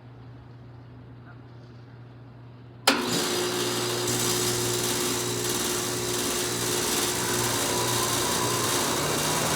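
Carrier Comfort Series heat pump starting up in heat mode: a faint steady hum, then about three seconds in a sharp click and the unit comes on all at once, running loud and steady with the rush of its fan and the hum of its compressor.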